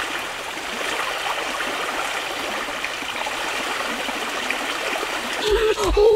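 Steady rushing of running stream water. A person's voice breaks in near the end.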